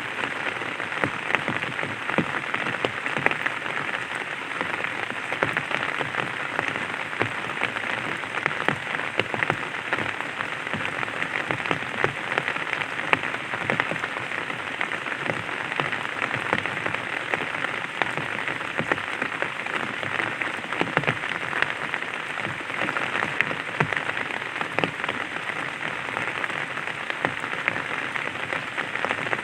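Light rain pattering on an umbrella: a steady hiss of many fine drop ticks.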